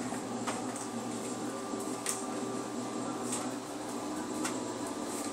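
A few faint light clicks, about four spread over several seconds, over a steady electrical hum.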